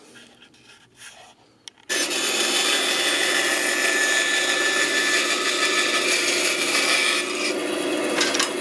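Bandsaw cutting through a glued-up walnut and maple panel: after a couple of quiet seconds with light handling knocks, the loud steady rasp of the blade in the wood starts suddenly. About seven seconds in, the high part of the cutting sound falls away.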